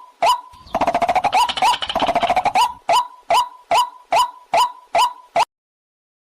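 Recorded waterhen calls played back as a catching lure: a string of sharp, rising call notes repeated about two and a half times a second, with a faster, overlapping run of calls for about two seconds near the start. The recording cuts off abruptly about a second before the end.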